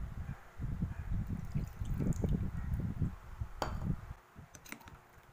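Pineapple juice poured from a small bowl onto pork pieces in a glass bowl, a steady splashing pour for about four seconds. A few sharp clicks follow near the end.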